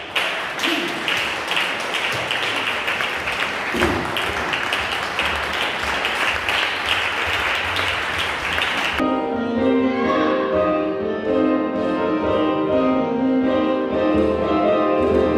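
Ballroom dance music over a hall PA, mixed with applause and a steady beat. About nine seconds in it cuts off abruptly and a different track of held string and piano notes takes over.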